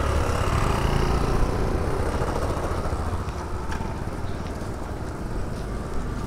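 Road traffic noise: a steady low rumble of running vehicle engines.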